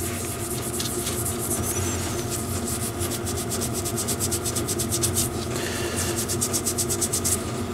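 Scotch-Brite abrasive pad scrubbing deposits off the crown of a Triumph Bonneville T140 piston by hand, in rapid back-and-forth scratchy strokes that come fastest in the second half, over a steady low hum.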